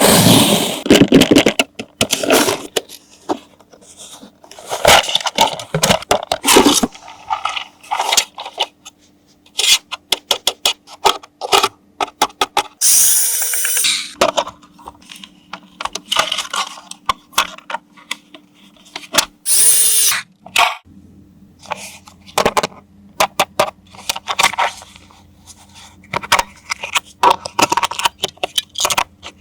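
Irregular clicks, scrapes and short rustling bursts from handling a plastic toy vehicle and its packaging, with a faint steady hum underneath from about seven seconds in.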